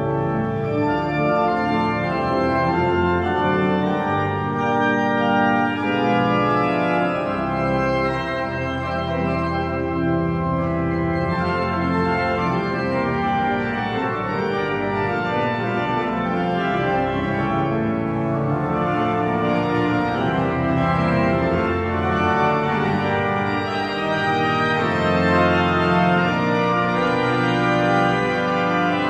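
Church pipe organ playing slowly moving, sustained chords.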